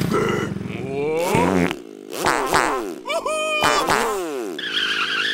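Wordless, squeaky cartoon character voices: rising and falling cries and babble, with a low buzzing sound in the first second.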